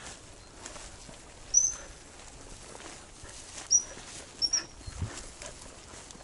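Footsteps swishing through tall wet grass and weeds, broken by four short high-pitched chirps: one about a second and a half in, one near the middle, then two in quick succession.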